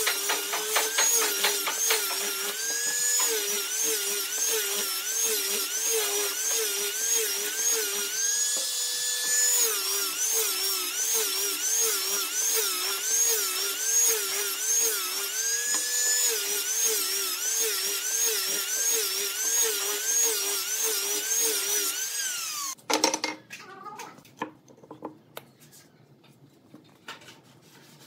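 Angle grinder with a sanding pad running as it sands a wooden dowel. The motor's whine dips and recovers about twice a second as the pad is pressed onto the wood and eased off, and holds steady while it is lifted clear. It cuts off sharply about 23 seconds in, leaving a few light knocks.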